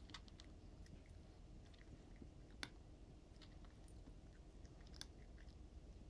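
Cat chewing dry kibble: faint, irregular crunches, with one sharper click about two and a half seconds in.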